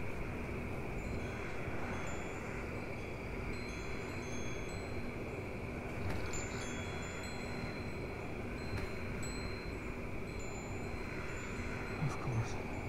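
Faint high chime tones, scattered and overlapping throughout, over a steady background hiss and a low hum; a couple of soft knocks near the end.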